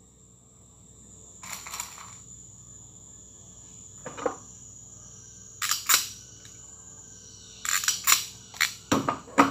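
Scattered clicks and short scraping rustles of hand tools and wires being handled at the terminal blocks of an elevator control panel, in about five separate bursts. A faint, steady high-pitched whine runs underneath.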